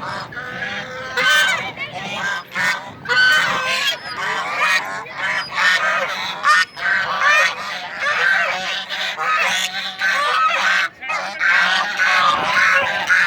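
A group of white domestic ducks quacking, many loud calls overlapping without a break.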